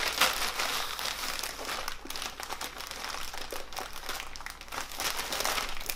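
Clear plastic garment bag crinkling continuously as hands lift, turn and handle it, with a T-shirt folded inside.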